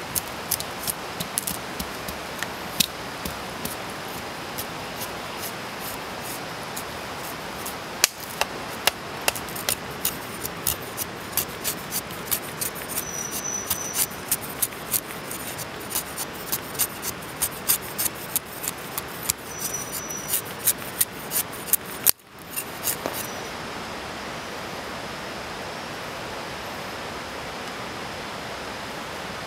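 A knife blade shaving curls off a stick to make a feather stick, in short sharp strokes about two to three a second, over the steady hiss of heavy rain. The strokes stop after about twenty seconds, leaving only the rain.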